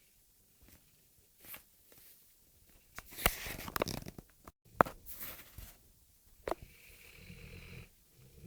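Rhodesian Ridgeback dog snoring in its sleep, with a steady low snore from about seven seconds in. Earlier come a few sharp clicks and a louder burst of crackly noise with clicks about three to four seconds in.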